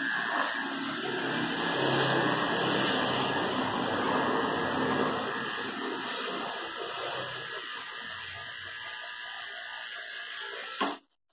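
Electric pet grooming clippers running steadily as they cut a cocker spaniel's coat, then switched off with a click near the end.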